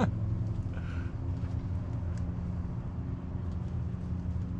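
A steady low mechanical hum with a few faint ticks.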